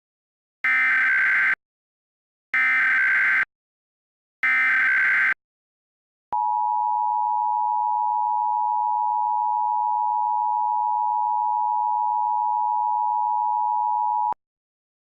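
Emergency Alert System alert tones: three roughly one-second bursts of SAME header data tones with short gaps between them, then after a pause the steady two-tone EAS attention signal held for about eight seconds and cut off abruptly.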